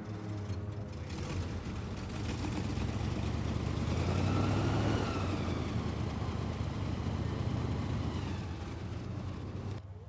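Airboat engine and propeller idling steadily, swelling a little louder about halfway through and cutting off abruptly near the end.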